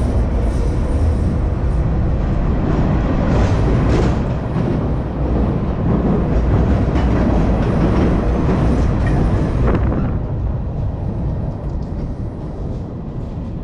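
A train crossing a steel girder railroad bridge overhead, heard from beneath the deck: a loud, steady rumble that eases off after about ten seconds.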